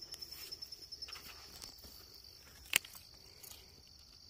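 Insects trilling steadily, a faint high-pitched pulsing chirr, with one sharp click a little under three seconds in.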